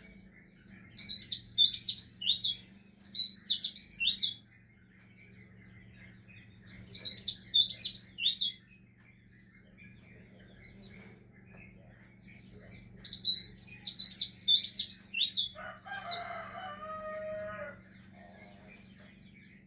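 White-eye (pleci) song: three bursts of fast, high twittering a few seconds each, the last followed by a brief lower-pitched sound. A faint steady hum runs underneath.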